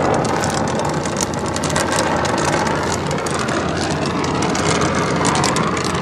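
Brazing torch burning with a steady hiss of flame over a low steady rumble.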